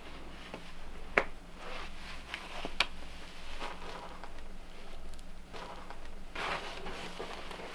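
A climber's hands and rubber shoes scuffing and tapping on sandstone while topping out a boulder, with two sharp taps against the rock about one and three seconds in.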